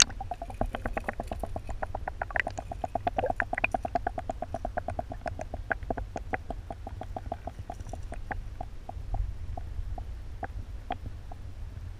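Rapid clicking heard through an underwater camera, about six or seven clicks a second, slowing to scattered clicks in the last few seconds, over a low muffled rumble of the water.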